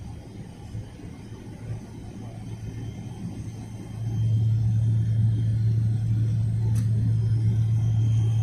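Low, steady rumble of an airliner heard from inside the cabin while taxiing, stepping up sharply about four seconds in and then holding loud, as the engines' thrust rises.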